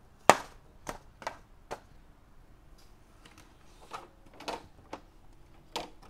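A string of sharp clicks and knocks, about eight, irregularly spaced, the loudest about a third of a second in.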